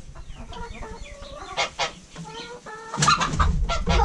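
Chickens clucking and squawking in short broken calls while they are being caught for wing clipping. A loud burst of noise comes about three seconds in.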